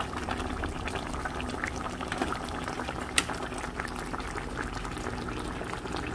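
Fish soup simmering in a pan over a gas burner, bubbling with a steady stream of small pops and crackles, and one sharper click about three seconds in.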